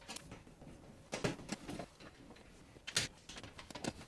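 Screws being handled and set into the holes of a steel breaker-panel cover: a handful of short metallic clicks and taps, the sharpest about three seconds in.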